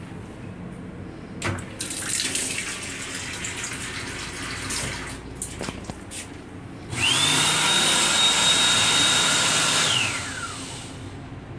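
Water running from the faucet of a railcar restroom sink for a few seconds. After it, the hand dryer in the same sink unit blows for about three seconds, its motor whine rising quickly to a steady high pitch and falling away once it cuts off.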